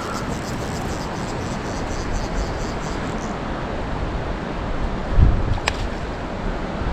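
Wind on the microphone: a steady rushing noise, with a heavier low gust about five seconds in and a single sharp click just after.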